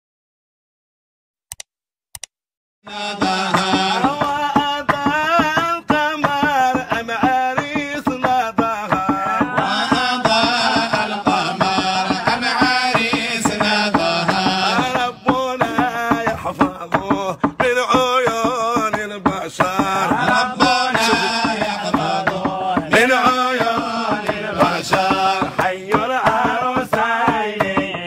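Arabic wedding nasheed music starting about three seconds in: an ornamented, wavering melody over steady drum beats.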